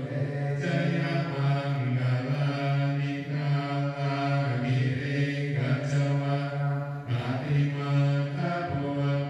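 Theravada Buddhist chanting by a group of low voices, in a steady, level monotone with phrases breaking every second or so.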